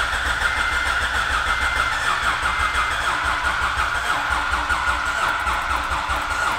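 Starter cranking the freshly installed 3.2-litre V6 of a 2004 Acura TL on its first start attempt, turning it over steadily without it firing, powered by a jump-starter pack with no battery in the car. A short beep sounds about once a second for the first three seconds.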